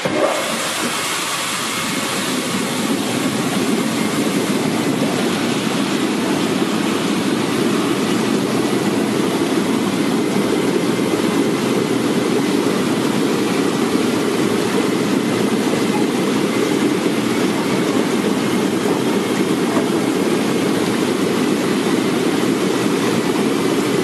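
QX-22 bubble washing machine running: air bubbling up through the wash water makes a steady rushing churn as the jujubes are tossed about. It swells over the first few seconds as the bubbling builds, then holds level.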